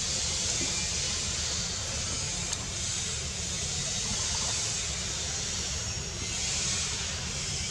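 Steady outdoor background noise: a high hiss that swells and eases a couple of times, over a constant low rumble.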